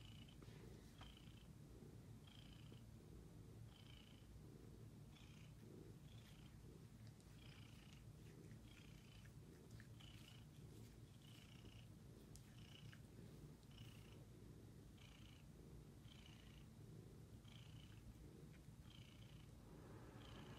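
Domestic cat purring, faint and steady, pulsing about once a second.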